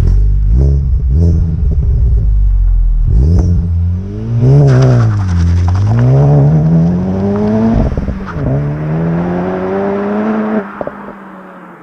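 Honda Civic Type R FK8 exhaust, its turbocharged 2.0-litre four-cylinder running through a downpipe and the stock cat-back. It gives a few sharp pops over a rough, low idle, then revs that rise and fall. It pulls up twice in pitch with a step down about eight seconds in, then lifts off near the end and the sound falls away.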